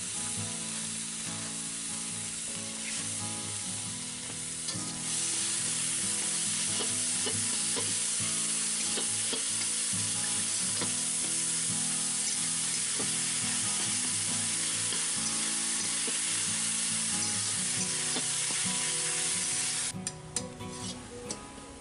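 Tomato, onion and ginger-garlic masala frying in mustard oil in a steel kadai, sizzling steadily while a flat iron spatula scrapes and stirs it around the pan. The sizzle gets louder about five seconds in and falls away shortly before the end.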